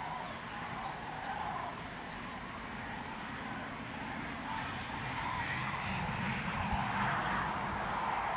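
Common cranes of a migrating flock calling in the distance, short trumpeting notes repeating over a steady rushing background that swells louder in the second half.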